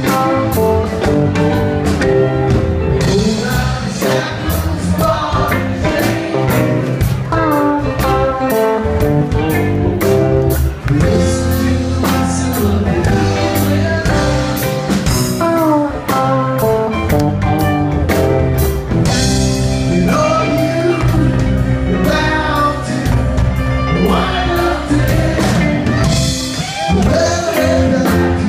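A live rock band playing: electric guitars carrying melodic lines over bass and a steady drum beat.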